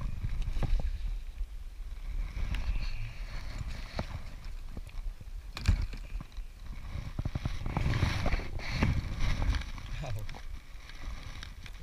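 Close handling noise from landing and unhooking a small fish: irregular clicks, knocks and rustles of rod, line, pliers and fish, over a low rumble, with a sharp knock about six seconds in and a busier stretch of clicks near the end.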